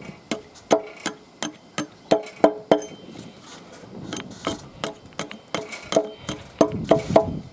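Small hatchet chopping at a wooden wedge set in the end of a leg, trimming it back flush: a quick run of sharp knocks, about three a second, some ringing briefly, with a pause about halfway.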